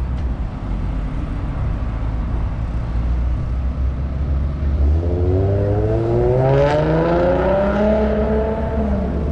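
Road vehicle engine accelerating in street traffic: its pitch climbs steadily from about five seconds in, then drops back near the end, over a steady low traffic rumble.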